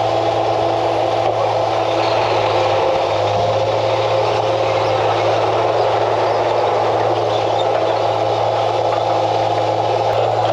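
Heavy diesel engine running steadily at a constant speed: a loud, even drone with a steady hum.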